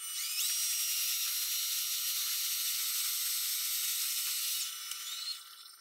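Metal lathe running and facing the ends of steel tool-holder shanks held in the chuck, played back ten times faster than real time, so it comes out as a steady high-pitched whir. It dies away near the end.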